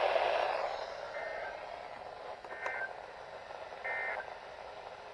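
Weather alert radio: its hiss fades out about half a second in, then it gives three short electronic beeps about a second and a half apart.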